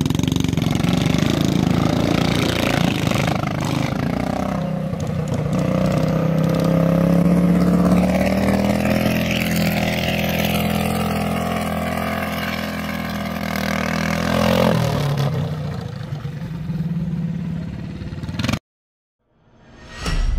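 A 390 cc four-stroke kart engine running under throttle on a dirt oval, its pitch rising and falling through the turns and dropping as the kart passes close by about 14 seconds in. The sound cuts off abruptly near the end, and after a moment of silence music begins.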